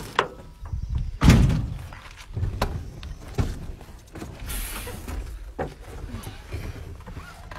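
A heavy truck cab door slams shut with a deep thud about a second in. Scattered knocks and handling noises follow inside the cab, with a brief hiss about halfway through.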